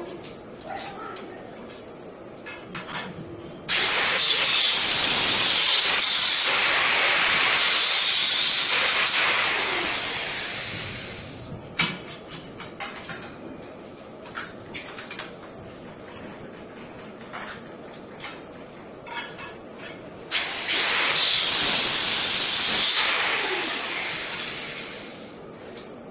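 Handheld angle grinder working stainless steel railing tube, in two long loud bursts of harsh hiss. Each burst starts suddenly and fades as the disc winds down. Light metal clicks and knocks come in between.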